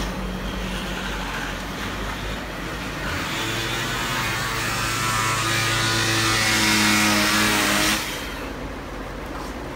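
A Ridgid power tool fitted with a scraper attachment running against painted wood trim. It grows louder and harsher from about three seconds in, then cuts off sharply about eight seconds in.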